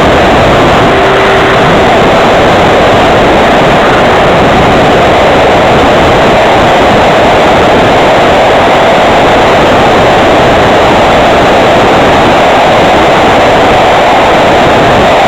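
Loud, steady rush of wind and propeller noise picked up by the wing-mounted camera of a homemade RC plane in flight.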